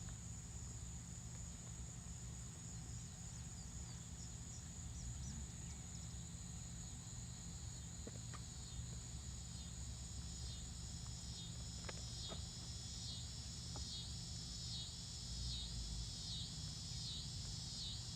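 Evening insects chirring: a steady high-pitched drone of crickets. From about halfway, a second insect joins with a regular pulsing call repeating a little over once a second. Under them is a low steady rumble and a few faint ticks.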